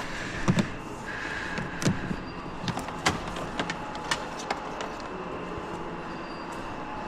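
Scattered sharp clicks and knocks of tools and car parts being handled during disassembly, with two brief squeaks in the first two seconds, over a steady background hum.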